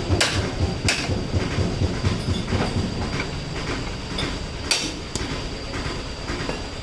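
A machine running with a fast, even, low rhythmic thudding, with a few sharp metallic clinks of tools over it.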